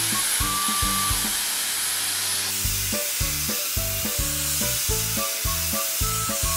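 Dyson Airwrap hair styler blowing air through a stiff-bristled brush attachment as it is drawn down through long hair: a steady airy hiss, under background music with a steady beat.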